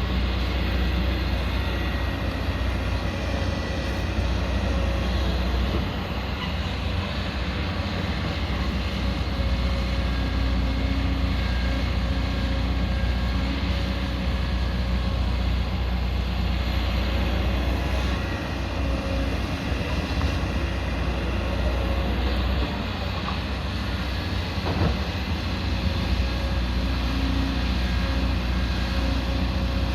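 Crawler excavator's diesel engine running steadily under working load, its tone shifting slightly now and then, with a single knock about three-quarters of the way through.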